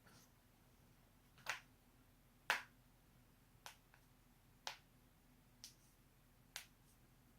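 Joints being cracked: six sharp, short pops about a second apart, the second one the loudest, with a fainter click between the third and fourth.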